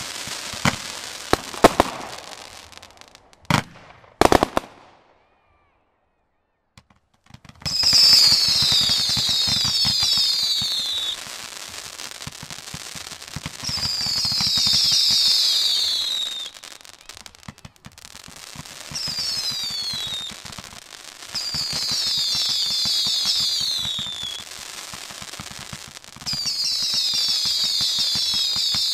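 "Fear In My Enemy's Eyes" consumer firework cake firing. It starts with sharp pops and crackle, goes dead silent for about two seconds, then fires five volleys of whistling shots, each a cluster of overlapping falling whistles over dense crackling.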